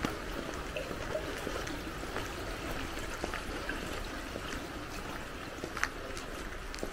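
Steady rush of flowing stream water, with a few faint taps of footsteps.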